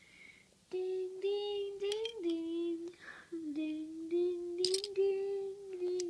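A young voice singing a tune in long held notes, starting under a second in, with a few sharp clinks of metal bottle caps being handled.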